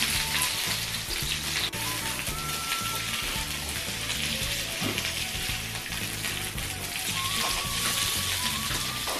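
Meat slices and perilla leaves sizzling steadily on a tabletop grill plate, over background music with a stepped bass line.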